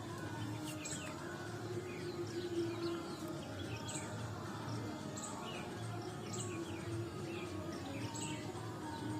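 Birds chirping repeatedly with short falling calls over a steady low hum.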